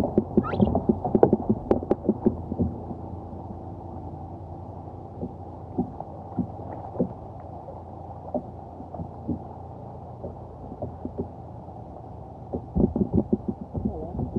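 Muffled knocks and bumps against a kayak hull over a steady dull water noise. The knocks come in quick clusters in the first couple of seconds and again near the end, with scattered single knocks between.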